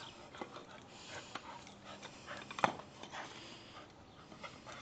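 A dog panting faintly, with a few small clicks and one sharper tap a little over two and a half seconds in.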